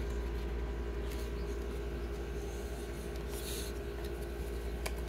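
Foil trading cards handled and gathered into a stack, with a brief soft scrape of cards sliding together about three and a half seconds in and a small click near the end, over a steady low hum.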